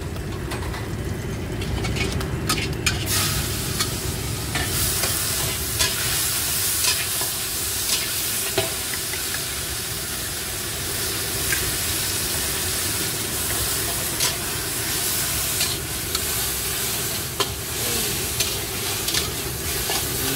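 Noodles stir-fried in a hot steel wok: loud sizzling from the oil, with a metal spatula scraping and clacking against the wok. The sizzling rises sharply about three seconds in, as food goes into the hot pan.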